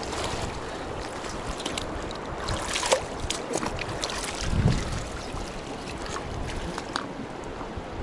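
Wind on the microphone over moving river water, with a few scattered light clicks and a dull thump about four and a half seconds in.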